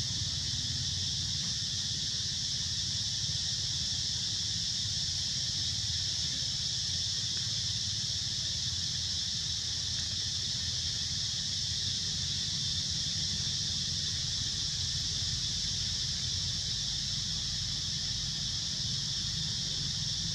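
Steady high-pitched drone of insects in the forest, unchanging throughout, over a low rumble of wind.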